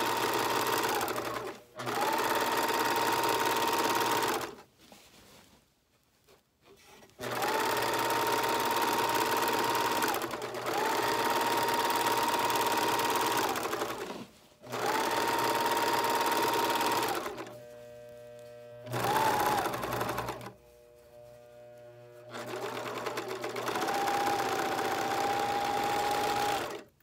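Serger (overlock machine) stitching and trimming a fabric edge in about six runs of one to four seconds, stopping and starting between them, with a steady whine while it runs. It is overcasting an inside seam allowance so the edge won't fray or come unsewn.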